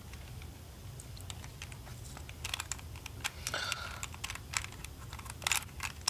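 Light plastic clicks and taps from loose Rubik's Cube pieces being handled and set down, scattered and more frequent in the second half, with a short scrape about three and a half seconds in. A faint low hum sits underneath.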